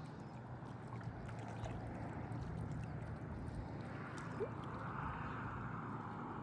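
Boat engine running steadily, gradually growing louder, with a brief high chirp about four and a half seconds in.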